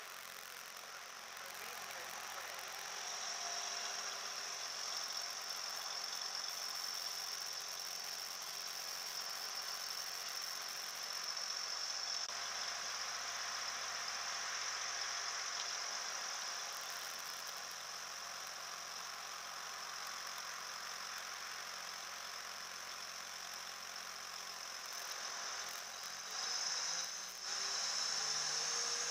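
Class 175 diesel multiple unit standing at the platform with its engines idling: a steady hiss under a high-pitched whine. A rising whine sets in near the end.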